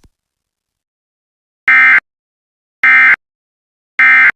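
Three short bursts of Emergency Alert System digital data tones (SAME AFSK), each about a third of a second and about a second apart: the 'NNNN' End of Message code that closes an EAS alert.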